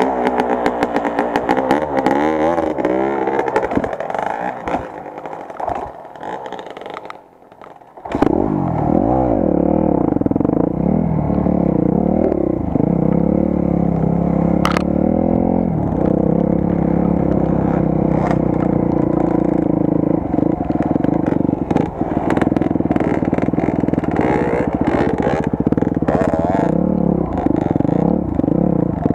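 Enduro dirt bike engine revving up and down under load, with scattered short knocks and rattles. About seven seconds in the engine sound falls away almost to nothing, then it comes back loud at about eight seconds and keeps running at a fairly steady pitch.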